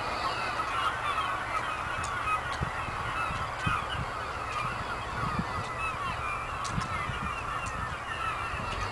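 A large flock of birds calling overhead, a continuous clamour of many short overlapping calls, over a steady low rumble.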